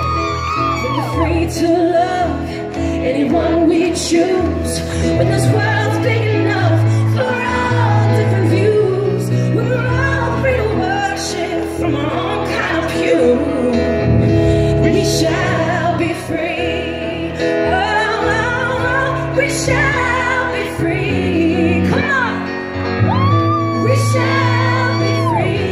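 Live band performance with a female lead vocalist singing a ballad into a microphone, with drum hits now and then. She holds a long note with vibrato near the end.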